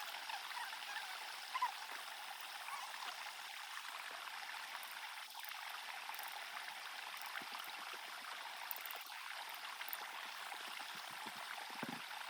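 Steady rush of flowing stream water, an even hiss with no pitch, with a short low thump near the end.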